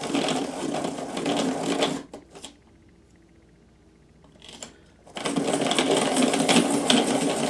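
Apsco Giant hand-crank pencil sharpener with a freshly fitted 3-A cutter head, shaving a new pencil: a bout of grinding stops about two seconds in, a few light clicks follow, and the cranking starts again about five seconds in.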